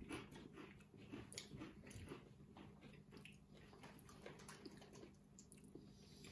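Faint chewing of crunchy corn cheese puffs (Cheetos), a scatter of small crunches and mouth clicks.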